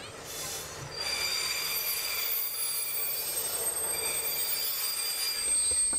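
Brakes of the X4545 'Caravelle' diesel railcar squealing as it slows into the station: a steady, high-pitched squeal of several tones, the characteristic brake noise of these railcars. It starts about a second in and cuts off at the end.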